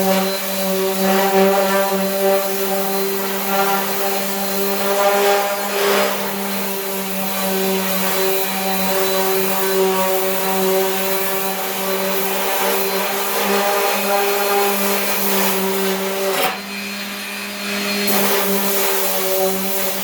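Power sander running steadily while sanding body filler on a truck's steel fender, a constant motor hum over a sanding hiss. It dips and goes duller for about a second and a half near the end, then comes back up.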